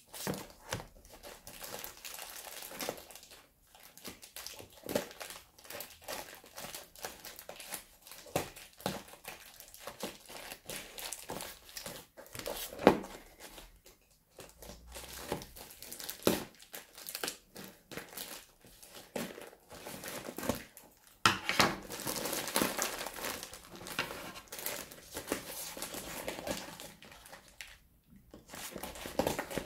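Plastic courier mailer bag being cut with scissors and pulled open: crinkling and crackling of the plastic with sharp snips and tears. The crinkling grows denser and louder for several seconds near the end.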